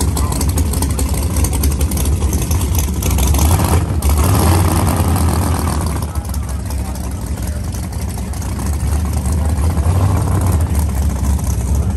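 Big-block V8 drag car running loudly near idle, swelling briefly a few seconds in before settling back. People's voices can be heard underneath.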